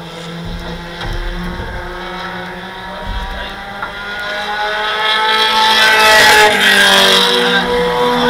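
Race engines of super mini trucks running on the track during practice, several at once, growing louder about five seconds in as they come by, their pitch sliding as they pass.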